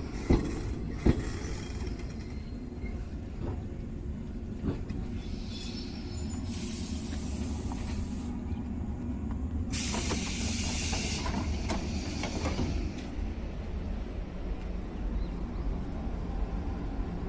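A JR 115-series electric train standing at the platform with a steady low hum. Two sharp clicks come about a second apart near the start. Later come two loud bursts of compressed-air hiss from the train's air system, about 6.5 and 10 seconds in, each lasting one to two seconds.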